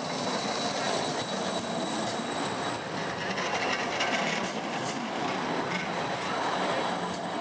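Siemens Combino low-floor tram rolling past close by, a steady rumble of steel wheels on rails.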